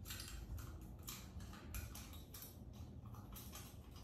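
Faint, irregular small clicks and ticks, a few a second, from a bulb being fitted and seated into a Bosch fog light's housing by hand.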